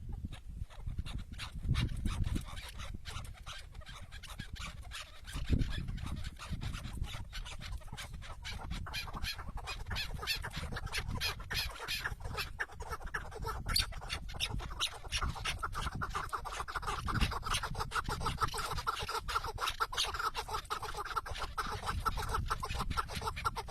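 Chukar partridges calling: a long run of rapid, repeated clucking notes that thickens into continuous chattering from about ten seconds in, over an irregular low rumble.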